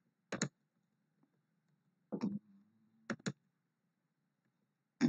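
Computer keyboard keys being pressed as numbers are typed in: a few sharp clicks, some in quick pairs, spaced a second or so apart.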